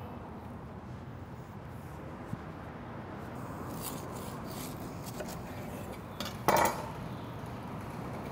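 Serrated knife sawing through a burger with a toasted bun and crispy fried onion strings on a wooden cutting board: faint crunching about four seconds in, then one short, louder crunch about six and a half seconds in.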